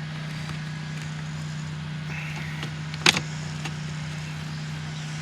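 A single sharp click about three seconds in, from a screwdriver working loose the factory turn-signal light inside a car's side mirror housing. A steady low hum runs underneath.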